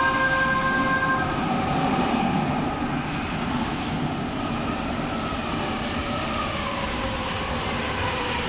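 The last notes of a station approach melody end about a second in, then an approaching linear-motor subway train runs into the station with a steady rumble. Its whine falls in pitch about six seconds in.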